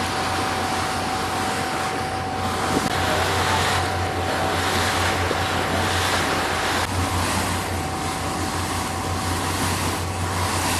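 Glass-bottom tour boat under way: its engine drones steadily, with a thin steady whine above it. Wind buffets the microphone and water rushes past the hull, the rush swelling and easing every second or two.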